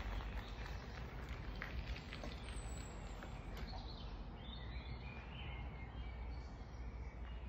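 Outdoor background noise: a steady low rumble and hiss, with a bird singing faintly about halfway through and a few faint ticks in the first two seconds.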